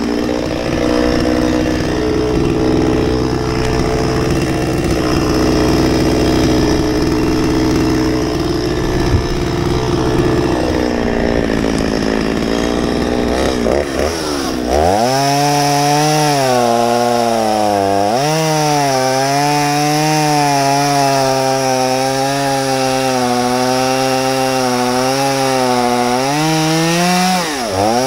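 Stihl 021 two-stroke chainsaw running at high throttle while cutting cherry logs. About halfway through, the engine note settles lower and wavers, then climbs briefly near the end.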